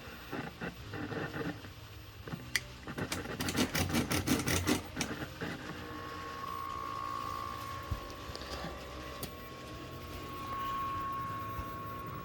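Rapid clicking and rattling from the front controls of a vintage colour television being worked by hand, a quick run of about four clicks a second lasting a couple of seconds. From about halfway a steady high-pitched tone from the set sounds over a low hum.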